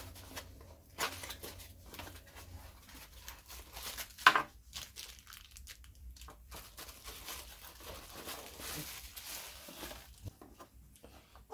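Cardboard box flaps pulled open and plastic wrapping rustled and crinkled by gloved hands, in scattered short rustles. A brief, louder crackle about four seconds in is the loudest sound.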